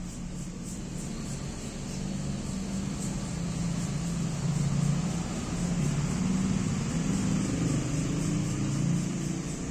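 A motor vehicle engine runs as a low, wavering hum, growing louder over several seconds and easing off near the end.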